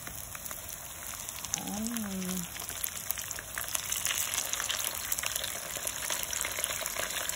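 Dried salted fish frying in a pan of hot oil: a steady, dense crackling sizzle that grows a little louder in the second half.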